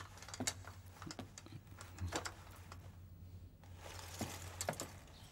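Faint rustling of cloth and scattered light clicks and knocks of armour and sword fittings as several kneeling men get to their feet.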